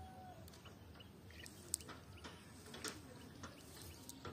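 Faint rustling and a few light, sharp clicks from a cast net being handled and sorted by hand, with faint bird chirps.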